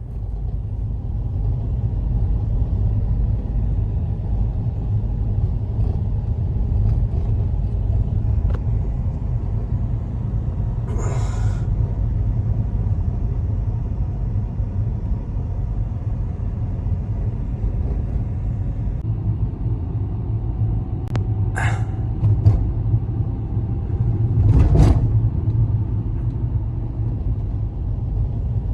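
Blizzard wind buffeting the microphone: a loud, steady low rumble, with a few brief scraping noises about 11, 21 and 25 seconds in.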